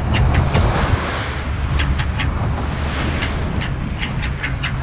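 Wind buffeting the microphone over the steady low drone of a motorboat's engine, with choppy water and scattered short sharp slaps and clicks.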